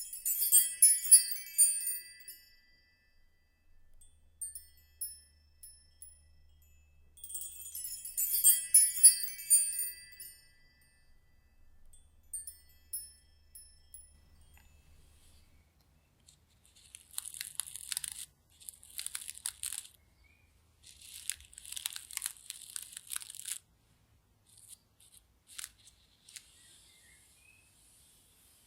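High ringing chime tones in two short runs, at the start and again about seven seconds in, then several bursts of crisp rustling from handled fabric between about 17 and 24 seconds.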